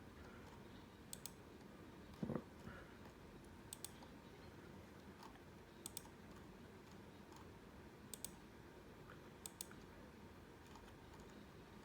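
Near silence with a handful of short, sharp double clicks every couple of seconds and one soft thump about two seconds in.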